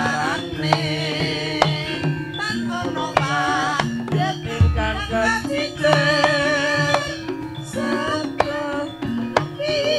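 Javanese jaranan ensemble music: a hand drum beats sharp strokes under a wavering, sustained melodic line. There is a deep low stroke about halfway through.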